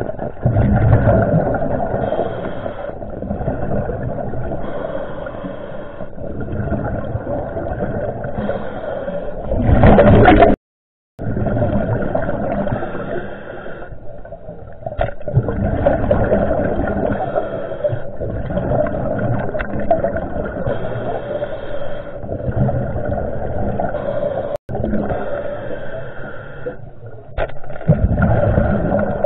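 Muffled underwater rumble and gurgling of water moving around the camera, swelling and easing every second or two, with a brief cut to silence about ten seconds in.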